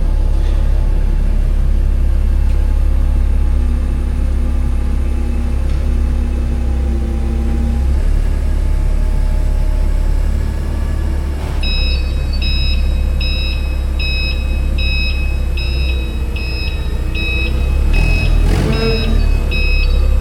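Semi-truck running with a steady low rumble. From about twelve seconds in, a high electronic beep repeats about one and a half times a second.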